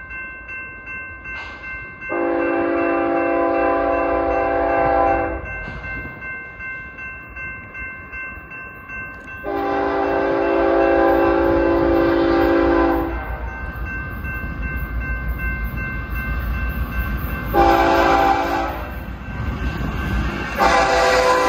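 Freight diesel locomotive's multi-chime air horn sounding the grade-crossing signal as the train approaches: two long blasts, one short, then a long one. Under it a crossing bell rings steadily about twice a second, and the low rumble of the locomotives grows as they near.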